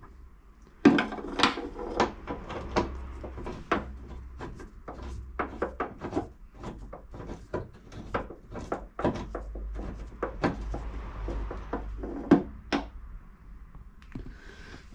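Irregular clicks, knocks and rattles of hand tools and fittings on a Land Rover Freelander 2 tailgate while its number-plate panel is unbolted and worked loose. A sharp knock about a second in and another near the end are the loudest.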